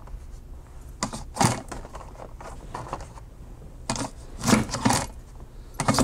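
A thin plastic sheet slides and taps against a heavy-duty disc-binding punch as it is lined up. A cluster of sharp clacks follows about four to five seconds in, as the punch handle is pressed down through the plastic.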